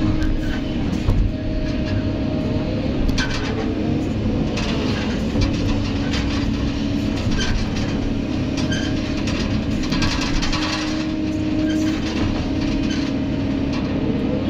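Kobelco SK200 excavator working under load, heard from inside the cab: the diesel engine runs steadily under a hydraulic whine that breaks and shifts in pitch as the boom and bucket move. Bursts of clanking and scraping come from the bucket digging into rocky soil, loudest about three to five seconds in and again around ten seconds.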